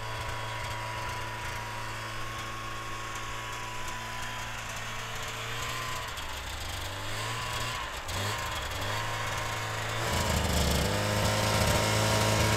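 Snowmobile engine running steadily, its pitch dipping and coming back up a few times through the middle, then louder for the last couple of seconds.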